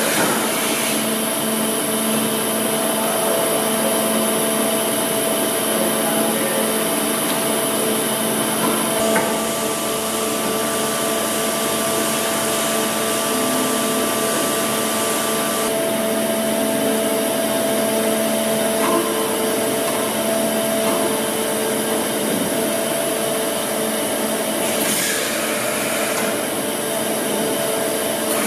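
Hyundai Wia KBN-135 CNC horizontal boring and milling machine running: a steady machine whine with several held tones that shift about nine and sixteen seconds in. A couple of short hisses come near the end.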